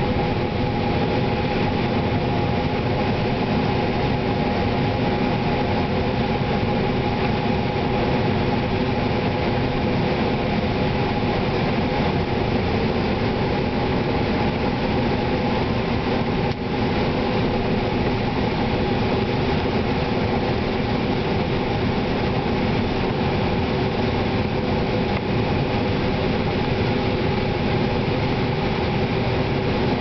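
John Deere 9500 combine's diesel engine and machinery running steadily under load while harvesting corn, heard from inside the cab: a steady drone with several held tones. The level dips briefly a little past halfway.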